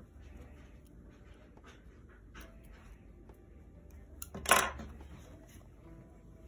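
Hands handling a sewn cloth mask: faint fabric rustling and small clicks, with one brief, louder clatter about four and a half seconds in.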